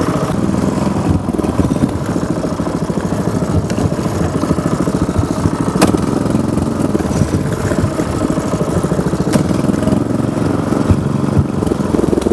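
Small motorcycle engine running steadily under way, with a sharp click or knock about six seconds in and another a few seconds later.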